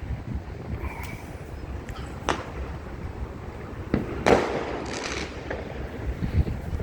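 Distant New Year fireworks bursting: a sharp bang about two seconds in, then a cluster of louder bangs with crackling tails a little past the middle, over steady wind noise on the microphone.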